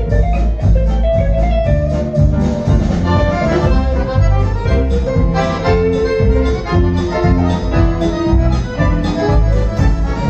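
Accordion playing a melody solo over a live band, with bass and drums keeping a steady beat.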